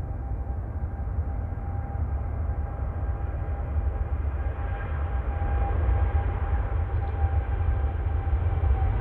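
Boeing 787-8 jet engines running at high power on departure: a steady low rumble with a thin steady whine, slowly growing louder.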